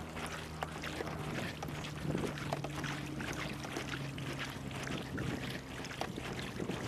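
Kayak paddle strokes, the blades dipping and dripping water with small splashes. A low, steady hum runs underneath and fades near the end.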